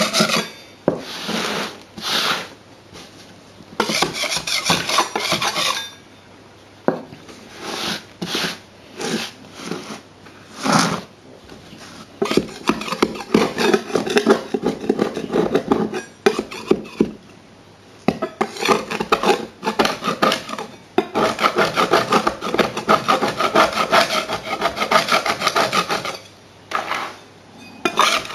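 Metal scraper blade scraping grit and dried ballast off a model railway baseboard, in spells of quick back-and-forth strokes with brief pauses between.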